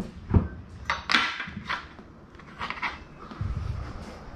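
A few light knocks and clicks as a dinner plate and a phone are handled on a granite kitchen counter and a wooden cutting board. Two stronger thumps come at the start and a moment later, then scattered small clicks.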